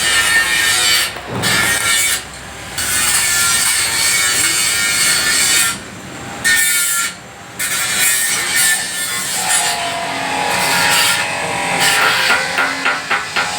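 Harsh, noisy metalworking sound, a steady scraping hiss that breaks off briefly a few times, then turns to rapid light tapping near the end.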